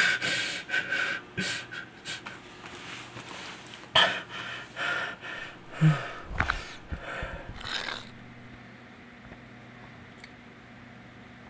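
A man breathing heavily and panting, with two sudden louder sounds about four and six seconds in. The breathing stops about eight seconds in, leaving a steady low hum.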